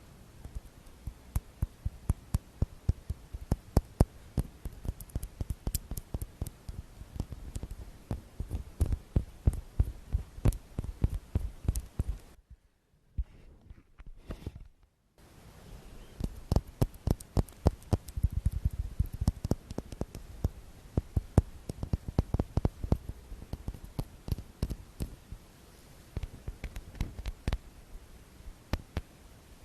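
ASMR tapping: many quick, irregular taps with dull low thumps beneath them, stopping for about two seconds around the middle before going on.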